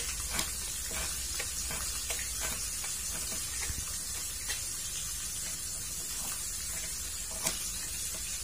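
Fish frying in a pan of oil, a steady sizzle, with irregular light knife taps on a plastic cutting board as shallots are sliced.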